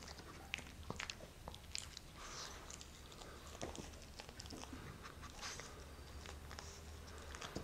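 Small dog eating scraps of food off a wooden tabletop: faint, irregular chewing clicks and licking smacks.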